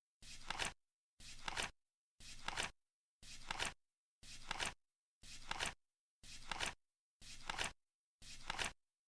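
Flip clock turning over once a second: each flip is a short rustling flap that ends in a sharp double click, nine times in a steady rhythm.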